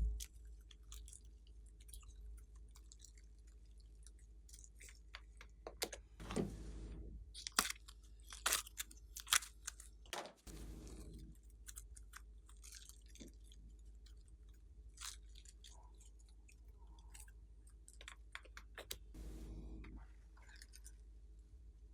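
Hands squeezing, folding and pressing slime: an irregular run of sticky clicks and small pops, with a few louder squelches scattered through.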